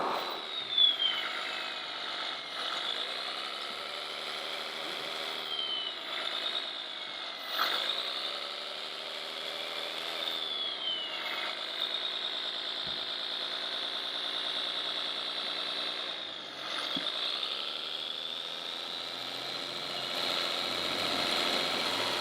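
Scale RC construction machines running, their engine sound modules imitating a diesel that revs up and settles back every few seconds. A high electric motor whine glides up and down with the revs.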